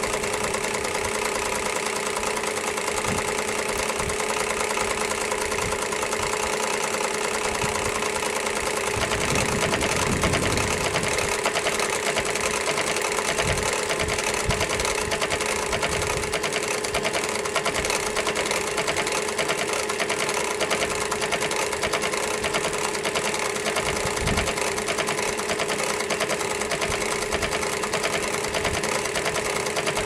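Electric Singer sewing machine running steadily, stitching a long seam in thin fabric, its motor and needle mechanism making one continuous hum.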